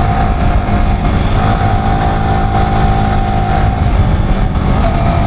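Motorcycle engine running at a steady cruising speed, with a steady whine above the engine note and wind rushing over a helmet-mounted microphone.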